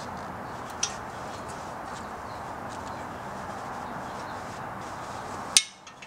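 Flat-blade screwdriver prying at the steel retaining spring clip on a 2004 Audi A4 front brake caliper: a light metal tick about a second in and a sharp click near the end, over a steady hiss.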